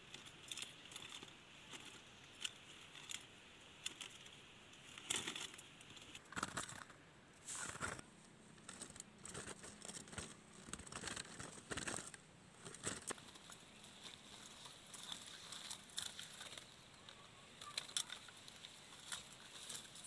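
Irregular rustling, crinkling and light clicks from a plastic-mesh bird trap and the small birds in it being handled, with a few louder rustles partway through.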